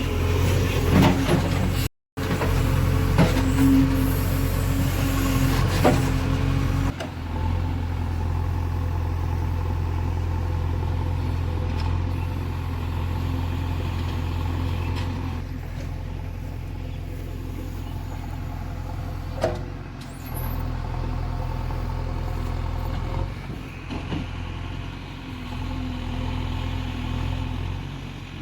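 Heavy diesel engine running steadily with a low, even hum. The sound drops out for a moment about two seconds in and changes abruptly about seven seconds in.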